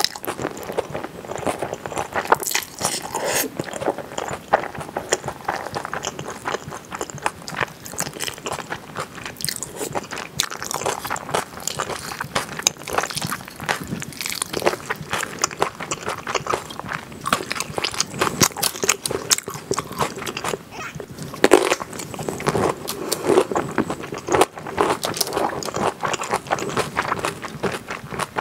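Close-miked eating of spicy kimchi pasta: noodles slurped in and chewed, a dense, continuous run of small mouth clicks and bites.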